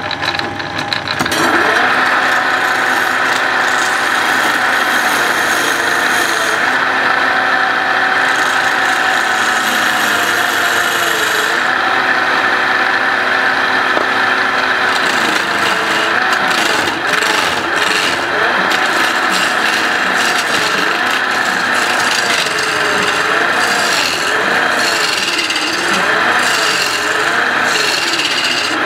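Wood lathe spinning a square wooden sofa-leg blank while a hand-held turning chisel scrapes it down to a round, a steady loud rasp of steel on wood starting about a second and a half in. In the second half the scraping tone wavers up and down as the tool works along the piece.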